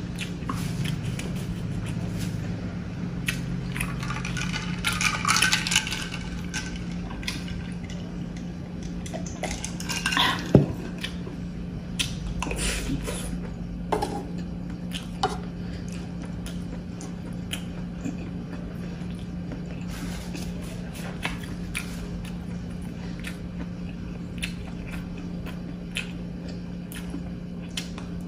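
Close-up eating sounds: chewing squid, with a wooden spoon clicking and scraping on a cast-iron sizzling plate. A steady low hum runs underneath, and there is one sharp knock about ten seconds in.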